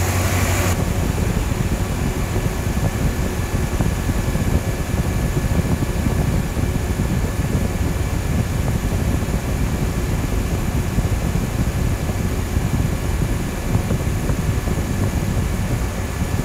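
Twin electric radiator cooling fans running at full speed: a steady rush of air, with heavy buffeting from the fans' airflow hitting the microphone and a faint steady high whine. Less than a second in, a brief steadier hum cuts off.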